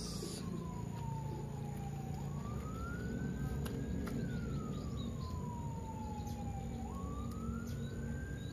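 A siren wailing slowly up and down: its single tone falls in pitch for about three seconds, then jumps and climbs back, twice over, over a low steady hum.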